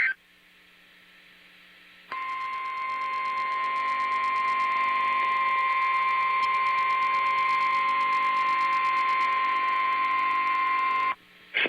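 NOAA Weather Radio warning alarm tone, the 1050 Hz tone: a single steady tone that begins about two seconds in and holds for about nine seconds before cutting off abruptly. It is the signal that switches on alert-equipped weather radios ahead of a warning broadcast.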